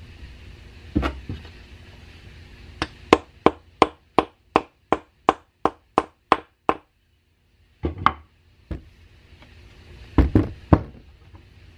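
Wooden mallet tapping the end bell of a 1920s General Electric 1/20 hp induction motor onto its housing: a quick, even run of about a dozen taps, about three a second, then a few heavier knocks near the end.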